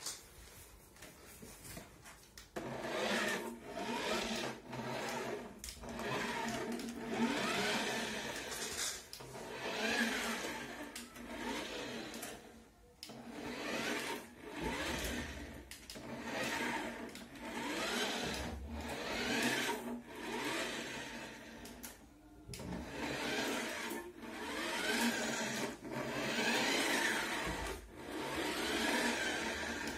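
Small electric drive motor and plastic gearbox of a toy remote-control fire truck whirring in repeated surges as it is driven back and forth, its pitch rising and falling with each burst of throttle. It starts about two and a half seconds in.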